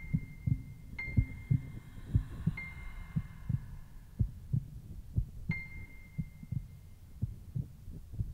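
Slow heartbeat sound effect: pairs of low thumps, about one beat a second, throughout. A high chime-like tone rings out and fades over it four times.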